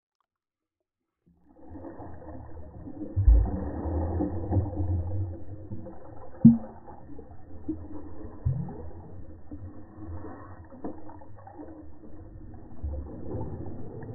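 Muffled churning of pool water heard through an underwater camera as a dog paddles, with nothing high in the sound. Three dull thumps stand out, about three, six and a half and eight and a half seconds in.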